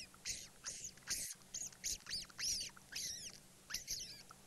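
A rapid series of short, high squeaks, about two or three a second, of the kind a person makes with the lips to imitate a small rodent and draw out a genet.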